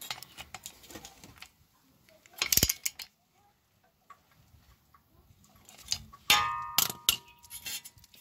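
Metal tool clinks from a socket wrench on the ABS wheel speed sensor's retaining bolt: scattered light clicks, a sharp knock about two and a half seconds in, and a ringing metallic clink a little after six seconds.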